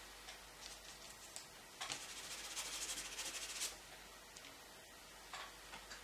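Faint strokes of a paintbrush on the painting surface: a few scattered ticks, then about two seconds of rapid scratchy tapping in the middle.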